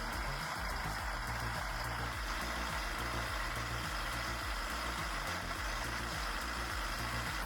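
Heavy machinery's engine running steadily, with a low, uneven rumble under a constant mechanical noise.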